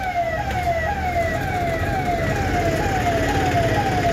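Emergency vehicle siren sounding in a fast repeating cycle, each sweep falling in pitch and snapping back up, about two a second, over a steady low rumble of noise.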